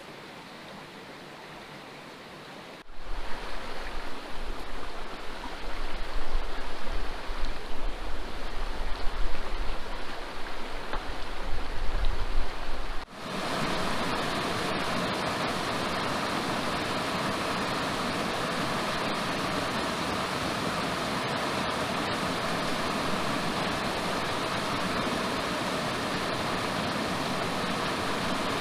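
A bush stream running over rocks: a steady rush of water. From about three seconds in, wind buffets the microphone in uneven gusts for some ten seconds, then the sound cuts to a louder, even rush of water close by.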